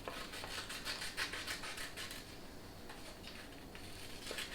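Scissors cutting through a sheet of paper: a run of quick, crisp snips and paper rustle, easing off briefly a little past halfway before a few more cuts.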